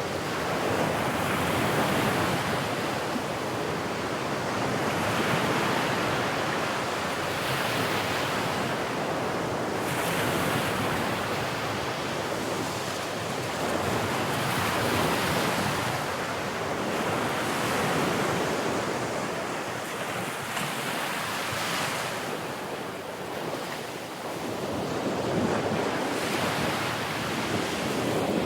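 Sea waves washing onto a shore, the surf swelling and ebbing every few seconds, with some wind buffeting the microphone.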